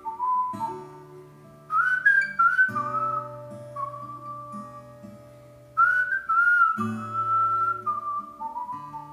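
Recorded song played through Radiotehnika S30 loudspeakers: a whistled melody gliding between notes in short phrases over acoustic guitar.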